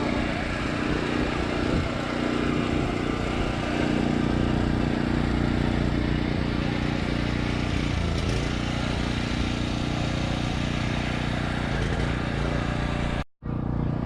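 An engine running steadily at an even pitch, with a brief cut in the audio shortly before the end.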